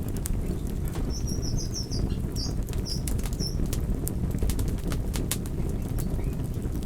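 Wood fire crackling, with scattered sharp pops over a steady low rumble. About a second in, a small bird chirps a quick run of short high notes for a couple of seconds.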